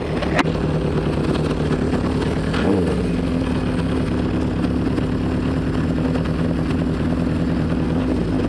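Honda CB500 Four's air-cooled inline-four engine idling steadily with the motorcycle standing still, with a single sharp click about half a second in.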